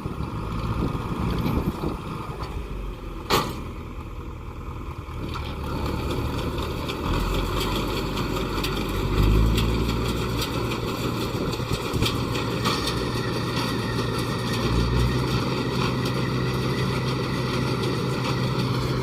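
John Deere 3020 four-cylinder diesel tractor running steadily while driving a Vermeer 54G round baler during hay baling, with a sharp knock about three seconds in and frequent clicking from the baler's machinery after that. The engine note steadies about nine seconds in.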